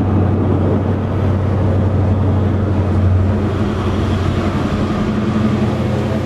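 Jet engines of the Red Arrows' nine BAE Hawk T1 jets flying over in close diamond formation: a steady, loud rumble with a low hum, easing slightly near the end.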